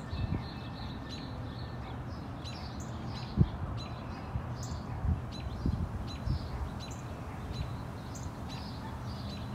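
A small songbird chirping over and over, about two short high chirps a second, over a steady low background rumble. A few dull low thumps break in near the middle, the loudest about three and a half seconds in.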